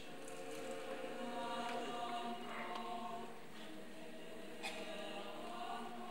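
Mixed choir of men's and women's voices singing a cappella, holding sustained chords that shift every second or so.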